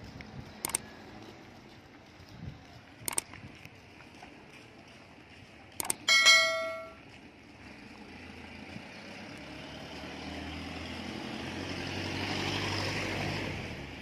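Click sound effects for a like-and-subscribe animation, three sharp clicks about one, three and six seconds in, followed at once by a bell chime that rings out for about a second. After that a passing car swells up, loudest near the end, and then fades.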